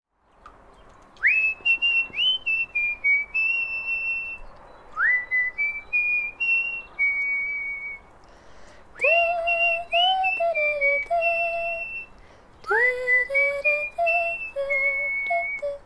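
A melody whistled in short phrases, each note scooping up into pitch. About nine seconds in, a lower, fuller-toned part joins the whistle for two more phrases.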